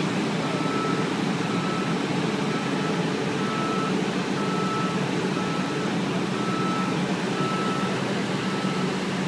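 A heavy vehicle's reversing alarm beeping at an even pace, a little faster than one beep a second, over the steady running of heavy vehicle engines.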